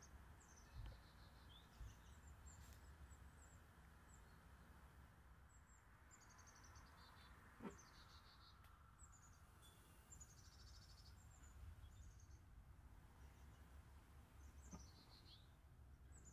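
Faint birdsong: small birds chirping in short, repeated high trills that fall in pitch, over a quiet low hum. Two brief soft knocks come about halfway through and near the end.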